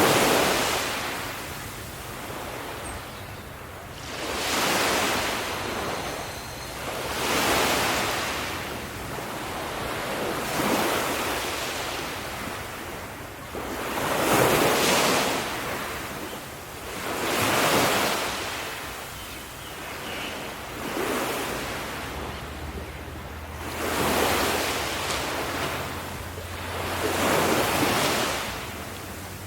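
Ocean waves breaking and washing up the shore, surging and falling back about every three seconds.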